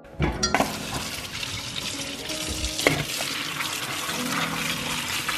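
Kitchen tap water running onto marrows in a stainless steel colander, starting suddenly just after the beginning, with a few sharp knocks in the first seconds.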